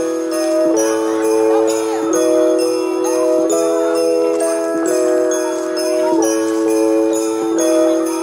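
Background Christmas music: jingle bells shaking in a steady rhythm over sustained chords that change every second or so.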